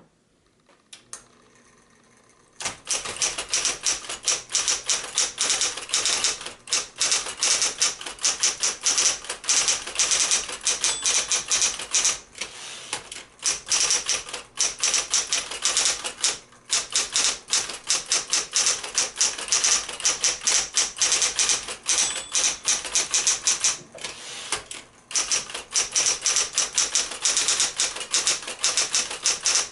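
Smith-Corona Coronet 10 electric portable typewriter being typed on: rapid, steady clatter of keys striking from about three seconds in, with a few brief pauses. The machine is working properly.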